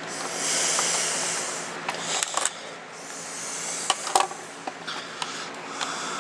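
Handling noise from working on a laptop: a few sharp clicks and light knocks amid a rustling hiss.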